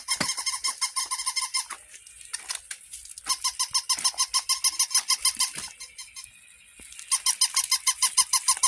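Battery-operated toy puppy's electronic yapping: rapid strings of short, high, squeaky yips, coming in three runs with brief pauses between them.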